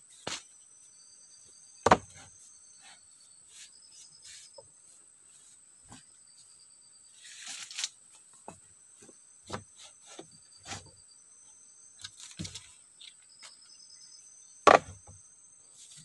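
Cut bamboo poles knocking and clacking against each other as they are laid side by side on a bamboo frame: a string of sharp knocks, the loudest about two seconds in and near the end, with a brief rustle in the middle. Insects chirr steadily and high-pitched throughout.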